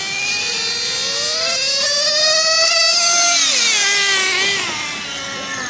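Small nitro two-stroke engine of a radio-controlled drag car revving high as it accelerates down the strip. Its pitch climbs steadily for about three seconds, then drops away over the next second or so.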